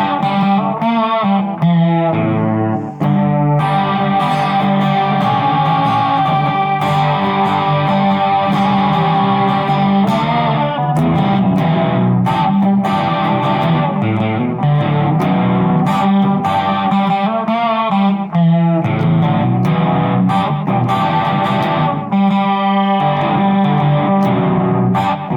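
Electric guitar playing through effects with light distortion, a steady picked rock part over a moving bass line.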